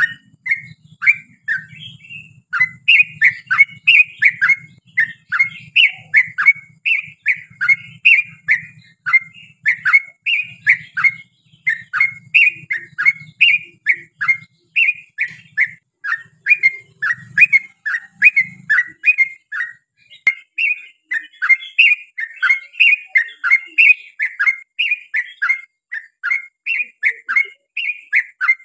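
Yellow-vented bulbul (trucukan) singing a long unbroken run of short, quick-sweeping warbled notes, about three a second.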